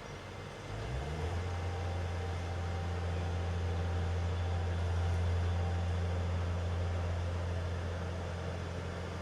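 Mobile crane's diesel engine revving up about a second in, then running steadily at raised revs while the crane turns and lifts the suspended footbridge.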